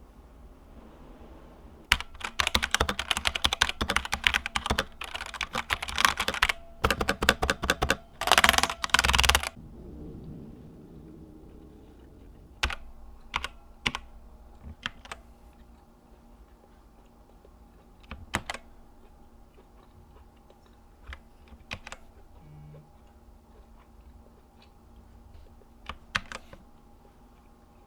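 TECWARE Phantom mechanical keyboard with Outemu Red linear switches being typed on: fast typing about two to nine seconds in, ending in a rapid flurry of keystrokes, then single key presses and short pairs scattered through the rest.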